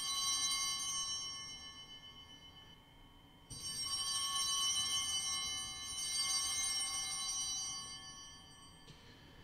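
Altar bells rung at the elevation of the consecrated host at Mass. A high, many-toned ring is fading at the start, is struck again about three and a half seconds in and once more about six seconds in, and each ring dies away slowly.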